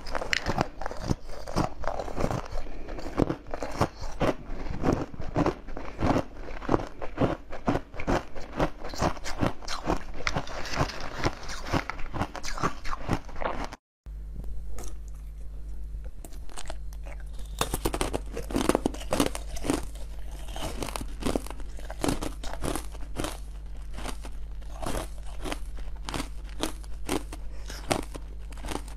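Close-miked eating sounds: rapid crisp crunching and chewing as a translucent green sweet is bitten. After a short break about halfway through, more crunching and chewing of a translucent blue jelly-like dome follows over a low steady hum.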